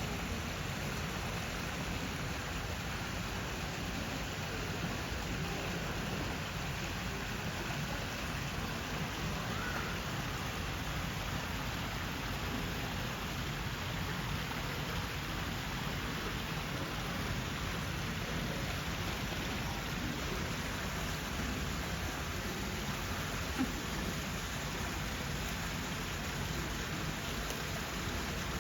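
Steady, rain-like noise: an even hiss with no separate events, and one faint knock near the end.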